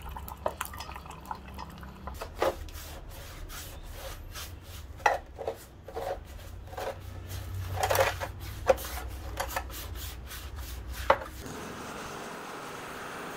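Brush scrubbing rusty metal knife parts in a plastic tray of foamy liquid, a run of irregular wet scrapes and knocks as the parts shift against each other. About eleven seconds in, this gives way to a steady rushing noise.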